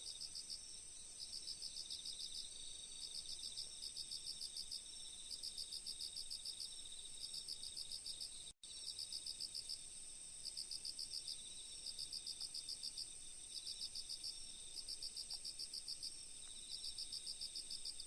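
Insects chirping in short, rapidly pulsed high trains about once a second, over a steady high continuous trill. The sound drops out completely for a split second about eight and a half seconds in.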